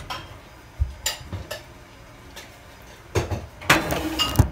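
A roasting pan clanking against the metal oven rack as it goes into the oven. A few light knocks come first, then a louder run of clatter about three seconds in, with a metallic ring near the end.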